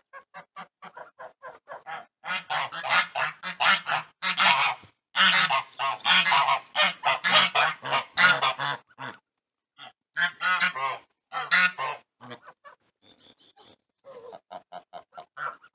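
A flock of domestic geese honking: many loud calls overlapping for several seconds, then scattered calls, and near the end a quick run of short calls at about four or five a second.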